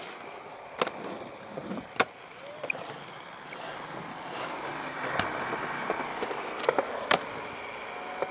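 Skateboard rolling on concrete, its wheels making a steady rumbling hiss that grows louder about halfway through, with several sharp clacks of the board hitting the ground.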